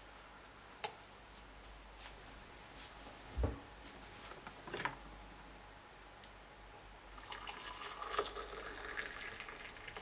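Water poured from an electric kettle into a ceramic mug onto a teabag, a splashing fill that starts about seven seconds in. Before it come a few light clicks and knocks, the loudest a dull thump about three and a half seconds in.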